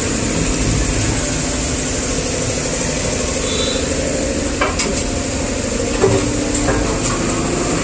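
HH-504 five-function automatic edge banding machine running, a steady motor hum with a constant hiss, and a few light clicks in the second half.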